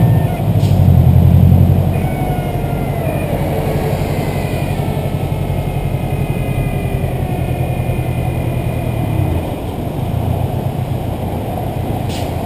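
Turbocharged flat-four engine of a Stage 2 Subaru WRX, loudest for the first two seconds as it pulls, then running at a steadier, quieter drone that eases off again about three-quarters of the way in.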